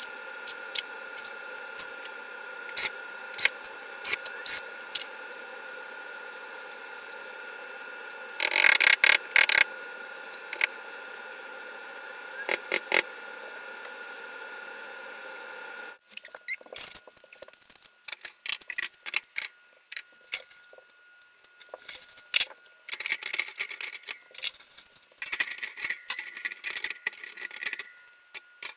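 Scattered clicks, knocks and clatter of wire shelving parts being handled and fitted to the wall, with a loud burst of clatter about a third of the way in and busier clicking in the second half. Under the first half runs a steady hum with a faint high whine, which stops abruptly about halfway.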